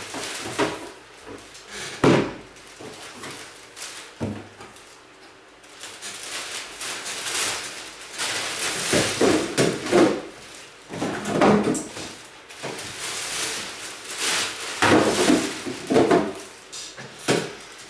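Belongings being handled and packed into bags: irregular knocks and clatter mixed with short bursts of rustling.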